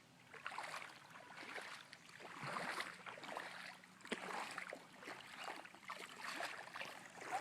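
Shallow floodwater splashing and sloshing in uneven swells every second or so, with a few light knocks, as the water is stirred around a child's small toy boat.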